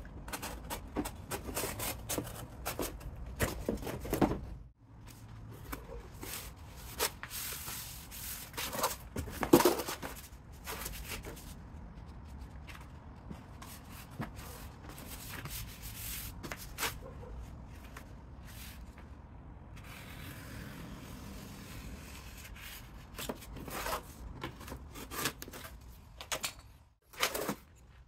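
A flattened corrugated cardboard box being handled and pushed around on a concrete floor: irregular rubbing, scraping and creasing with scattered knocks, the loudest knock about nine and a half seconds in. A utility knife is drawn along the cardboard.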